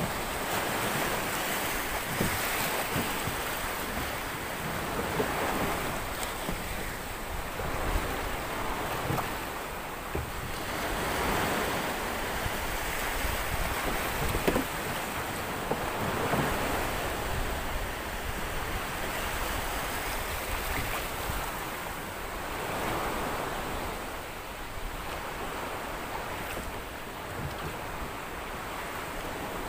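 Sea waves surging and breaking around a small boat, swelling and ebbing every few seconds, with wind on the microphone. A few short knocks come through, the sharpest about halfway through.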